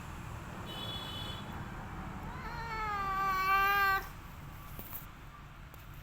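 Domestic cat giving one drawn-out meow, a little under two seconds long, that rises at the start, levels off and cuts off sharply about two-thirds of the way through.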